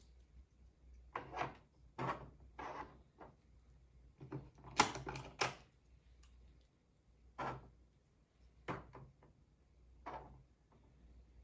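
Plastic toy pieces being handled, giving about a dozen irregular clicks and knocks, the loudest cluster about five seconds in.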